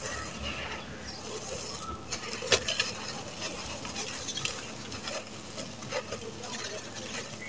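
Dry, gritty sand-cement crumbled in bare hands and poured into a clay pot: a steady hiss of falling grains with scattered crunches, the sharpest about two and a half seconds in.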